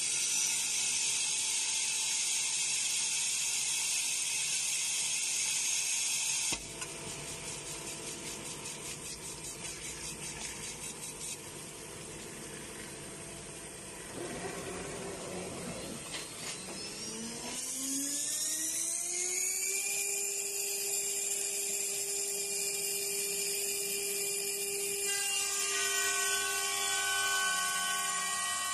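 Vertical glass drilling and milling machine at work: the drill spindle runs with a loud high hiss under its water coolant spray, which cuts off abruptly a few seconds in. Later the spindle motor spins up with a rising whine and then runs at a steady high pitch.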